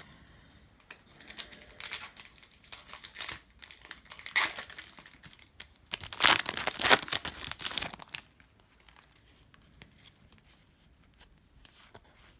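Foil trading-card pack wrapper being torn open and crinkled by hand, in irregular crackling bursts that are loudest a little past the middle, followed by faint handling of the cards.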